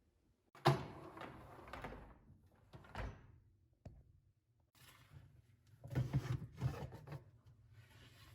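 Dishwasher racks and door being handled: sliding, rattling spells with a sharp clunk about three seconds in and a louder rattling stretch near the end.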